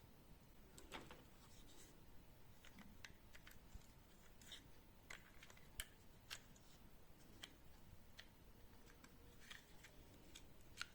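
Faint, irregular clicks and light taps of small pistol parts being handled and fitted, with a few sharper clicks about a second in, around five and six seconds in, and near the end.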